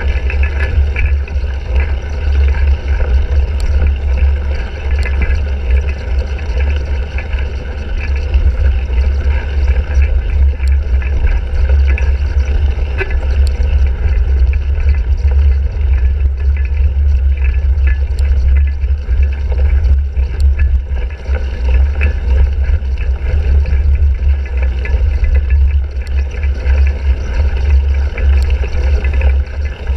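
Wind rumbling over the microphone of a handlebar-mounted action camera on a cyclocross bike being ridden, with tyre noise and scattered small clicks and rattles from the bike over rough ground.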